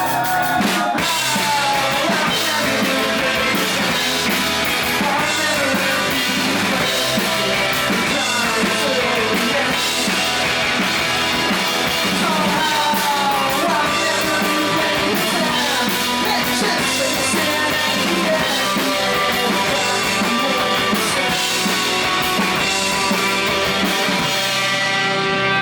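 A rock band playing loud and live, with the drum kit driving a steady beat under guitars, the vocals woven through.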